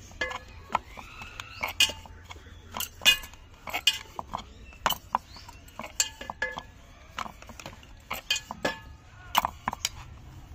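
Glass bangles clinking on a wrist while a wooden rolling pin rolls dough on a wooden board: irregular short, ringing chinks, a few a second, with soft knocks of the pin.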